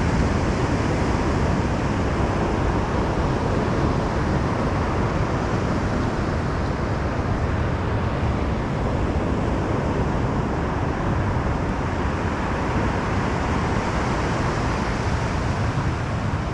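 Steady low rumble of wind buffeting the microphone over surf breaking on the shore.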